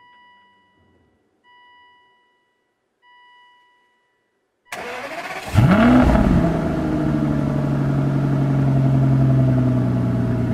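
Three short warning chimes from a 2005 Aston Martin DB9 as its instrument cluster powers up, then the starter cranks and the 5.9-litre V12 catches with a quick rev flare that rises and falls, settling into a steady idle from the exhaust.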